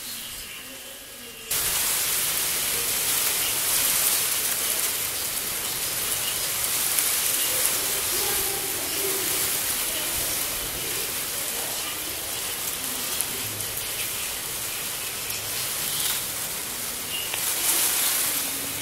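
Electronic noise from a small synthesizer played live: a dense, steady hiss like rain that cuts in suddenly about a second and a half in, after a few faint held tones.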